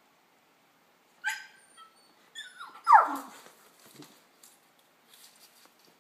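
Beagle giving a few high-pitched yips as it plays with a plush toy. The loudest comes about three seconds in and falls steeply in pitch. Faint scuffling follows.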